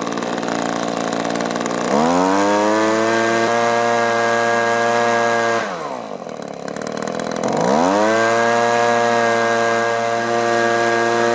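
Echo handheld two-stroke leaf blower engine revving from idle up to full throttle about two seconds in and holding there, dropping back to idle near the middle, then revving up to full throttle again and holding. It keeps running at full throttle without bogging down, which the owner takes as a sign the fuel-starvation problem is fixed.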